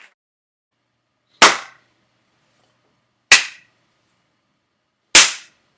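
Three single, sharp hand claps, evenly spaced about two seconds apart, each with a short echoing decay.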